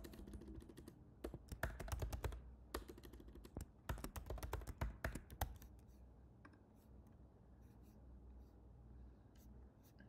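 Typing on a computer keyboard: quick bursts of keystrokes for the first five and a half seconds or so, then only a few faint clicks.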